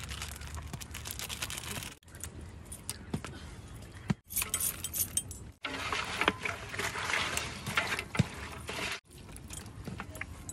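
Hands squishing and turning raw chicken pieces with masala powder in a large aluminium cooking pot: wet squelching and rustling, with metal jingles from the bracelets and rings. The sound breaks off abruptly several times.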